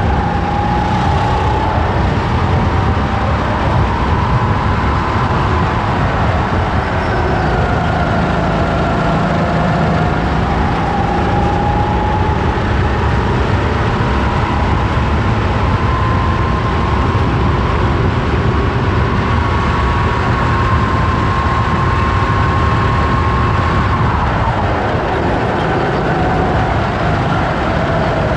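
Racing kart engine heard onboard at speed, its tone climbing and falling as the kart accelerates along the straights and lifts for corners, with heavy rumble from vibration and wind. The engine holds its highest pitch through a long stretch, then drops sharply about 24 seconds in as the kart slows for a tight corner.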